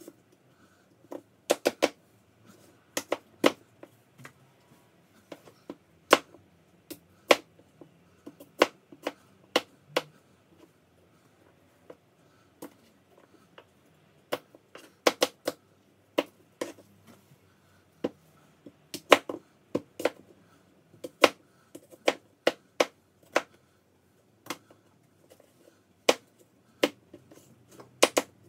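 Kitchen knife chopping apples on a cutting board: sharp, irregular knocks of the blade striking the board, often two or three in quick succession.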